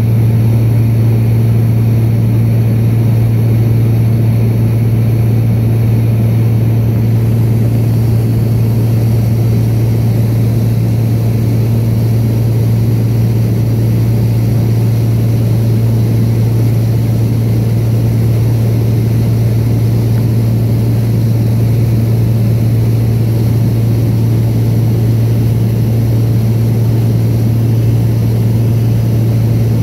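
Cabin noise of a Beechcraft Bonanza in flight: the flat-six piston engine and propeller make a loud, steady low drone.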